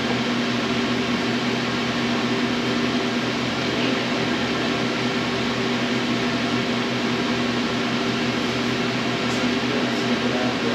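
Steady hum of a fan or air-conditioning unit, an even rush of air over a constant low electric hum, with no change.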